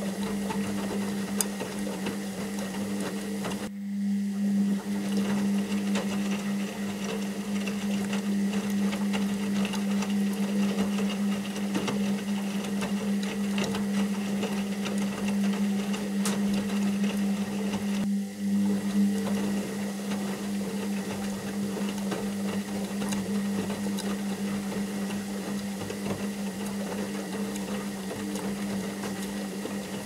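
Washing machine running: a steady low motor hum with a busy mechanical whir over it, dipping briefly about four seconds in and again past the middle.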